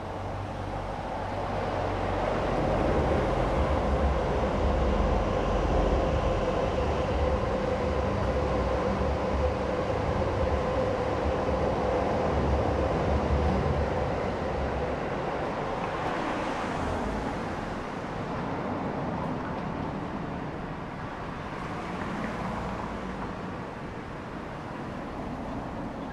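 A train passing on the rail line: a rumble with a steady hum that swells over the first few seconds, holds, then fades away over the second half.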